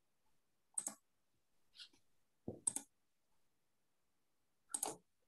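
A handful of sharp, irregularly spaced clicks from someone working a computer, with a quick pair of clicks near the middle, over quiet room tone.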